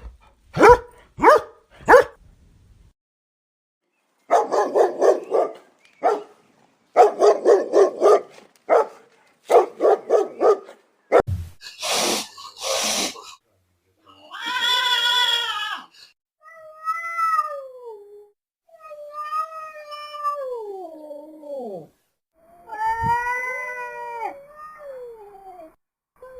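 A run of recorded animal calls: a few short sharp barks at the start, then several groups of rapid pulsed calls, and in the second half a series of long drawn-out cat meows that fall in pitch.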